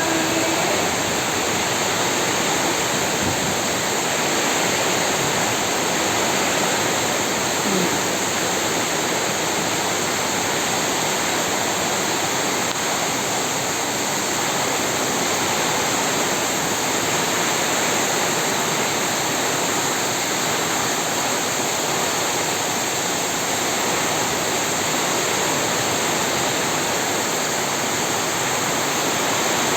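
Heavy rainstorm: torrential rain pouring down in a steady, unbroken rush.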